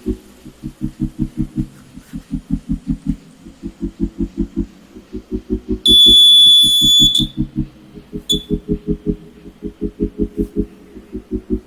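Homemade fire alarm's buzzer sounding a loud, high, steady tone for about a second and a half, starting about six seconds in, with a short chirp about a second later. Under it runs background music with a pulsing low beat.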